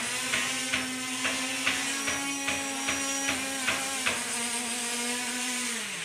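A toy quadcopter's brushless motors and propellers spinning with a steady, even buzz, which drops in pitch near the end as the motors slow. Over the first four seconds a regular ticking comes about two to three times a second.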